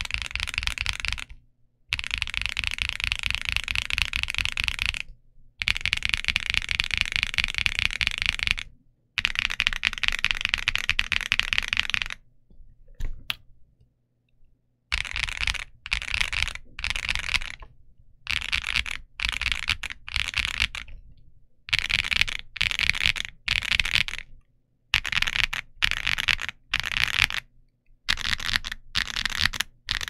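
Typing on a Keydous NJ87 Pro tenkeyless mechanical keyboard with Kailh Box Coffee switches and PBT keycaps: fast keystrokes in runs of about three seconds with short pauses. After a brief stop about halfway through, the runs become shorter and choppier, about a second each.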